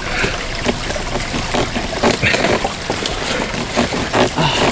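Water splashing and sloshing, with irregular knocks and clatter.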